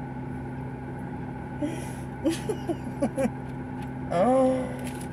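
Steady hum of a running car heard inside its cabin, with a few short vocal sounds and a longer hummed vocal sound about four seconds in.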